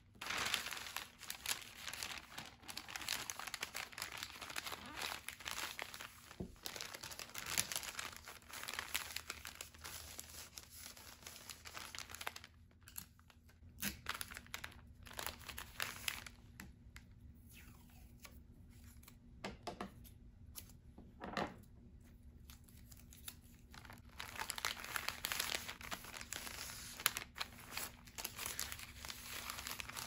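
Kraft paper bags rustling and crinkling as they are handled, folded and pressed flat. The sound is quieter for several seconds in the middle, broken by a few light taps, then the crinkling picks up again near the end.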